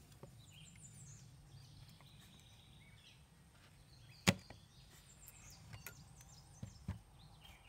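Wooden and plastic parts of a small electric spinning wheel being handled and fitted together: one sharp click about four seconds in, then a few softer knocks. Faint high chirping of birds in the background.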